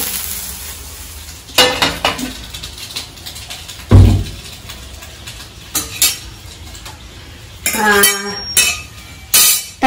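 Kitchen cookware clattering: the sizzle of a hot tempering fades at the start, scattered clinks of steel utensils follow, and a heavy non-stick dosa tava is set down on the gas stove with a loud thud about four seconds in. Near the end, steel vessels clink and ring twice.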